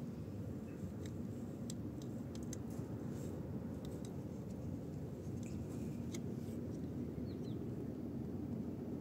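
Faint scattered clicks and ticks of thin sensor wires being handled and fitted into a terminal block, over a steady low background hum.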